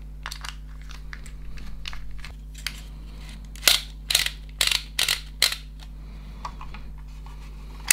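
Sharp plastic clicks from a Dymo Omega embossing label maker being handled and worked, about six clicks spread over two seconds midway, over a faint steady hum.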